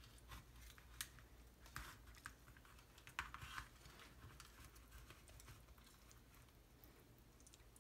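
Faint clicks and short scrapes of a knife cutting through baked pie crust and scraping against an aluminium foil pie tin, a handful of small strokes in the first few seconds.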